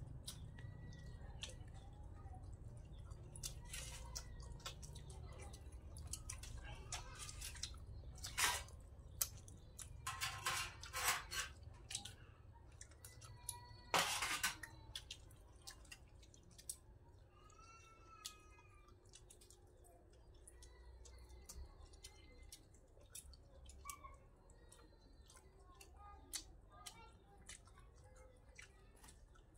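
People eating mackerel curry by hand: soft chewing and lip-smacking, with a few loud slurps of the hot broth around the middle. A few faint bird chirps come in later.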